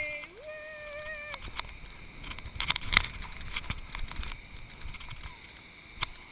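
A person's long yell held for about a second, jumping up in pitch near its start. It is followed by a run of knocks, crackles and scraping as a boogie board slides down a sand dune, with the sharpest knock about three seconds in.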